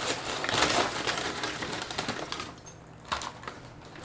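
Paper fast-food bags crinkling and rustling as they are opened and rummaged through, busy for the first two seconds, then quieter with a few scattered crackles.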